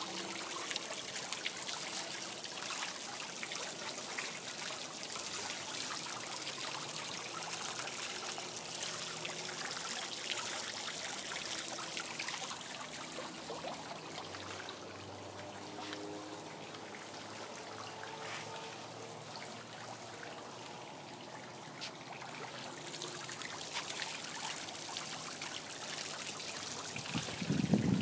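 Steady trickle of running water, with a short loud low sound just before the end.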